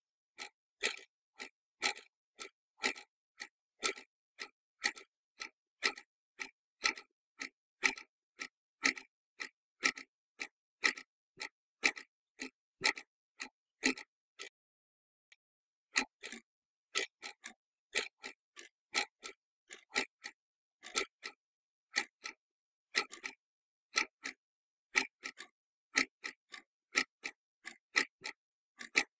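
Clock ticking steadily, about two sharp ticks a second in uneven pairs. The ticking stops for about a second and a half midway, then resumes.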